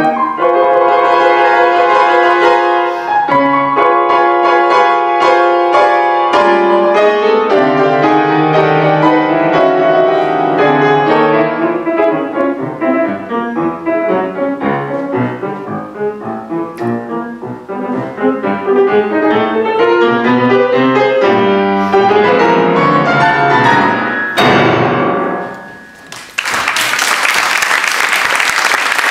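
Steinway grand piano playing a solo classical piece of many quick notes, ending on a low final chord that rings and fades. A couple of seconds before the end, applause breaks out.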